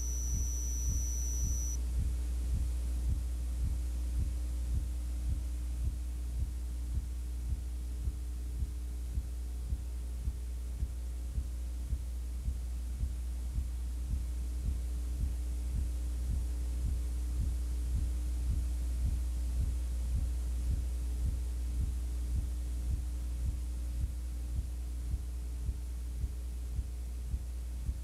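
Steady low electrical hum with a soft regular pulse about twice a second, and no game sound. A thin high whine stops about two seconds in.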